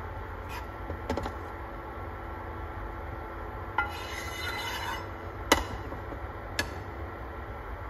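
Wooden spatula knocking and scraping in a nonstick frying pan: a rough scrape about four seconds in, then a sharp knock a little later, the loudest sound here. Under it is the steady hum and whine of an induction cooktop.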